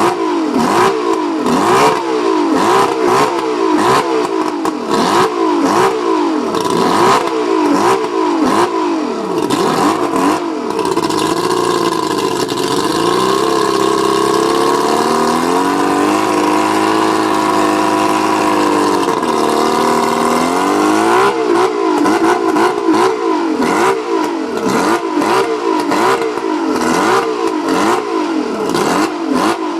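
Mercury 135 outboard running rough with a misfire, its speed surging up and down unevenly with irregular pops. About halfway through it holds a smoother, steadier speed for several seconds before the uneven surging returns. The owner thinks the spark plugs may be the cause.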